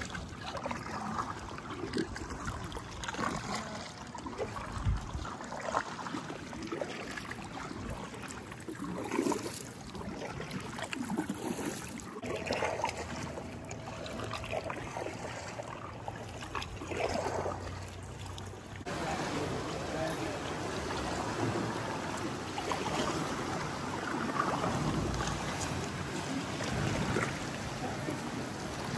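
Water splashing and lapping around a paddled sea kayak, with faint voices now and then.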